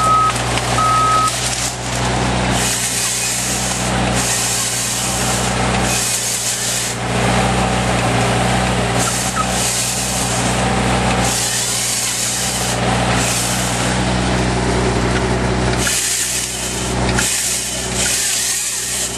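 Excavator's diesel engine running steadily, its reversing alarm beeping twice at the start. Over it come repeated surges of hissing noise, each about a second long, as the excavator-mounted chainsaw attachment works.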